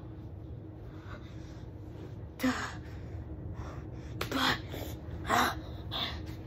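A child's sharp, breathy gasps, four times starting about two and a half seconds in, like the sobbing breaths that come just before crying.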